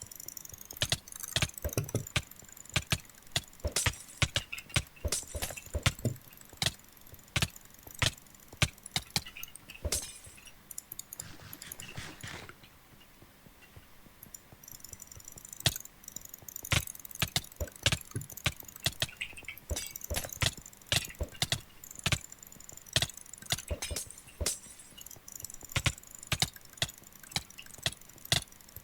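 Computer mouse buttons clicking in quick runs of double and triple clicks, as fired by a click macro, with a pause of a few seconds near the middle.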